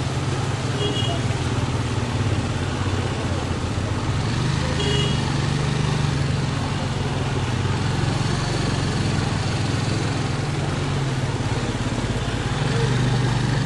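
Motorcycle engine running steadily at low speed while riding through knee-deep flood water, with the water washing and splashing around the wheels. Two brief high beeps sound, about a second in and again near five seconds.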